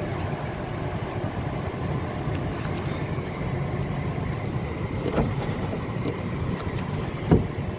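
Steady rush of a Honda Civic's cabin blower on full speed over the idling 1.8-litre four-cylinder engine, heard inside the car. The A/C, with its newly replaced compressor, is taking its refrigerant charge and starting to cool. A short knock about five seconds in and a louder one near the end.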